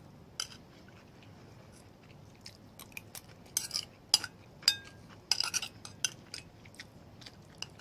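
Cutlery clinking and scraping on a plate, mixed with close-up chewing, as a scattered run of short clicks; one clearer ringing clink comes a little past halfway.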